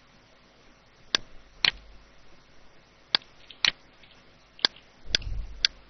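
Computer mouse clicking: about seven sharp single clicks, spaced roughly half a second to a second apart, with a short low thump just after five seconds in.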